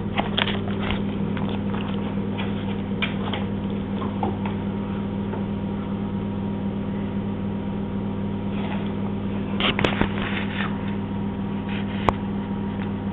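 A steady low electrical hum, with a few short soft noises and a sharp click about twelve seconds in.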